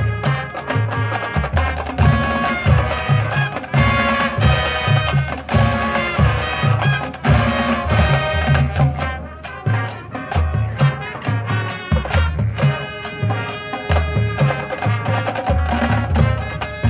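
High school marching band playing its competition field show: sustained brass chords over a steady, driving beat of low drums, heard from the stands.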